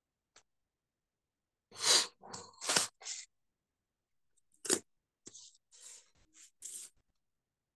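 Plastic circle template handled and slid over paper: a few short, irregular scraping and rustling noises, the loudest about two seconds in and a cluster near the end.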